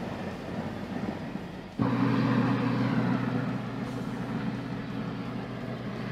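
Steady engine noise, a rushing sound over a low hum, which comes in suddenly louder about two seconds in.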